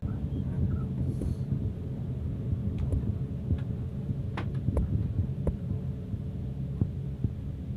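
Bus engine's low, steady rumble heard inside the cab while the bus drives, with a few light clicks and rattles from the cabin in the middle.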